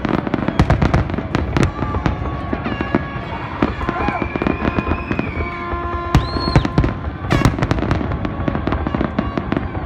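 Fireworks finale: a rapid, continuous barrage of aerial shell bursts, bang after bang with hardly a gap.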